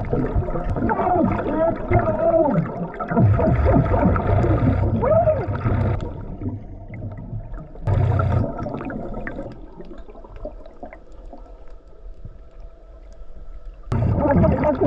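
Scuba diver breathing through a regulator underwater: long bubbling exhalations from the regulator's exhaust, with a quieter stretch in the middle before the bubbling returns near the end.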